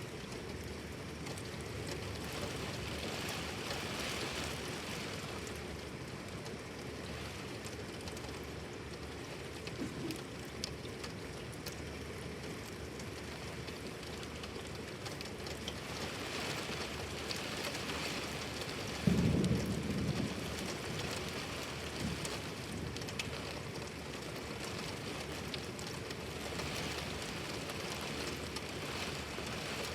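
Rain pouring steadily in a thunderstorm, with one short, low rumble of thunder about two-thirds of the way through.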